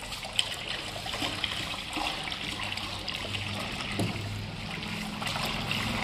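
Thick acid slurry pouring in a steady stream from a plastic bucket into a plastic drum of caustic water solution, a continuous trickling splash. There is a short knock near the start and another about four seconds in.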